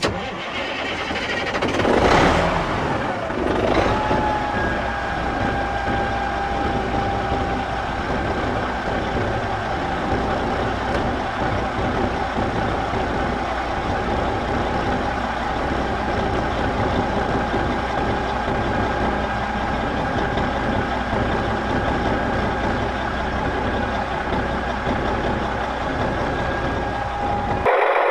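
Tractor engine sound: a start-up swell about two seconds in, then steady running with a constant whine on top until just before the end.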